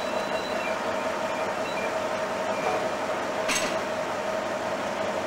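Small Köf diesel shunting locomotive running slowly: a steady mechanical hum with a constant tone, and one sharp metallic clank about three and a half seconds in.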